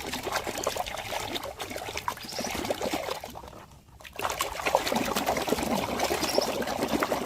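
Water pouring and trickling over a muddy toy as it is washed, with small splashes; the flow falls away briefly about three and a half seconds in, then runs again.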